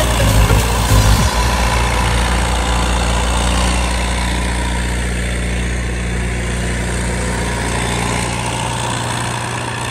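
UTB U650 tractor's four-cylinder diesel engine running steadily.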